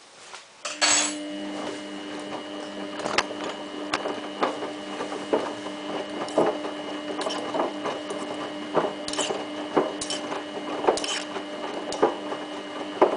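A small electric motor in a Samsung WF8804RPA washing machine running with a steady hum and many irregular light clicks and rattles. It starts suddenly just under a second in and cuts off at the end.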